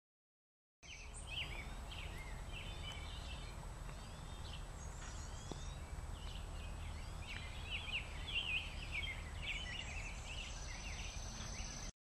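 Several songbirds chirping and singing at once, short overlapping calls busiest in the second half, over a low steady rumble.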